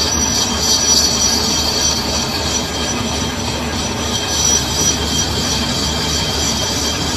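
Metal lathe running, its cutting tool turning a metal shaft with a steady high squeal over the machine's hum.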